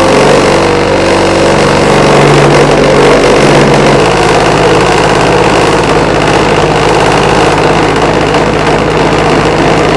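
Small electric home cotton candy machine running, its motor spinning the heated sugar head with a loud, steady whirring hum.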